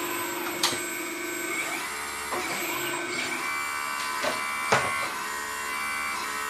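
Electric hydraulic pump and drive motors of a 1:6 scale RC Locust 752 skid steer loader whirring as it works the bucket and turns, the whine's tone shifting several times. Three sharp clicks stand out, one about half a second in and two close together near the end.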